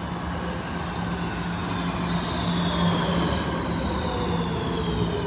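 RET metro train pulling into the station, its motor whine falling in pitch as it slows, over the steady running noise of the train.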